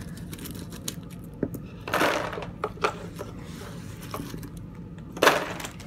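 Small plastic game figures clicking and clattering as they are handled and dropped into the game box, with two louder rattles, about two seconds in and near the end, as handfuls go in.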